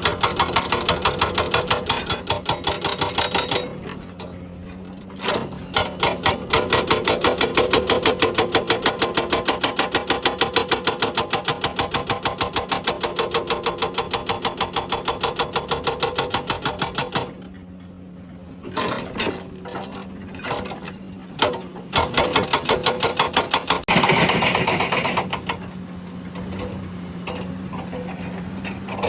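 Hydraulic rock breaker on a Komatsu PC200 excavator hammering rock in long runs of rapid blows, stopping about 4 seconds in and again past the middle, then firing a few short bursts before another run. The excavator's diesel engine runs steadily underneath.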